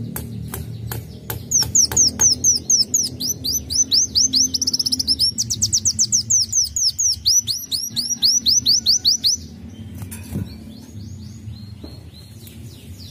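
Kolibri wulung song: a fast run of sharp, high, downward-sweeping whistled notes, about four or five a second and briefly faster near the middle, lasting about eight seconds and then stopping abruptly. A few sharp clicks come before it at the start.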